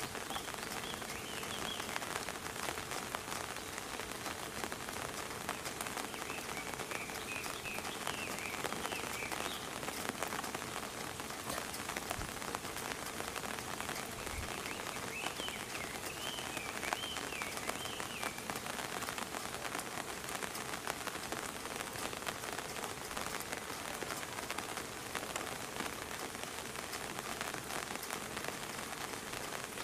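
Steady rain falling and pattering on surfaces, with a dense scatter of drop ticks. Faint high chirps come and go in three short runs.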